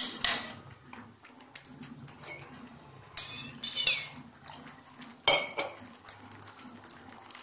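Steel spoon scraping and clinking against a metal kadai while stirring thick spinach gravy, with several sharp knocks, the loudest about five seconds in.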